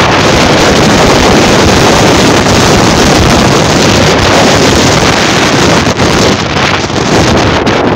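Loud, steady wind buffeting the microphone as it moves at road speed, a dense rumbling rush with a couple of brief dips near the end.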